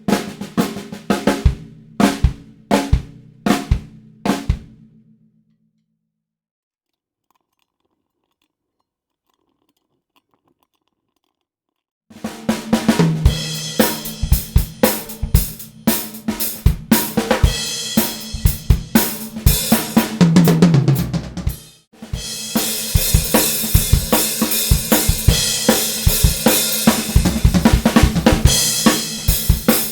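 Vintage Japanese stencil snare drum (a 14x5 Rogers copy), raw and unprocessed, struck in separate strokes about a second apart, each ringing briefly, for the first five seconds. Then it goes silent. From about twelve seconds a full drum kit plays a groove: snare, bass drum and Sonor toms, with a tom fill near twenty seconds. Then comes busier playing with Paiste 2002 cymbals washing over it.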